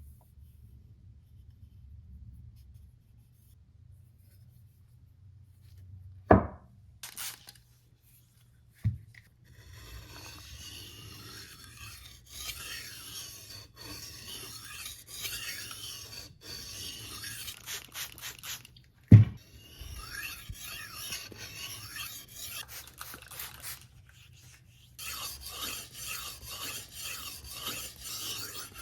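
Hand file rasping against metal in quick back-and-forth strokes, starting about ten seconds in and pausing briefly near the end before resuming. Three sharp knocks come before and during it, the loudest about two-thirds of the way through.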